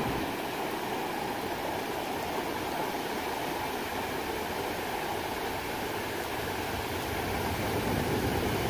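Shallow wash of a spent ocean wave sliding over wet sand at the water's edge, a steady rushing hiss that grows a little louder near the end.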